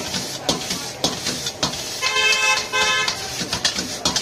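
Metal spatula clanking against an iron wok about twice a second as noodles are tossed, over a steady hiss of frying and the gas flame. About two seconds in, a vehicle horn honks twice in quick succession.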